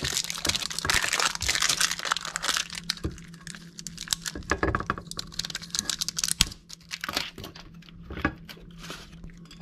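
Clear plastic film being peeled and crinkled off an aluminium injection mold, crackling densely for the first few seconds, then thinning to scattered crinkles and a few light knocks.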